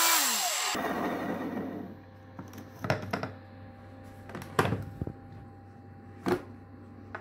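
Monsieur Cuisine Plus food processor's blade motor spinning down from top speed at the end of its run, its whine falling in pitch and stopping within the first second. Then a few sharp clicks and knocks as the plastic lid is unlocked and lifted off the steel bowl.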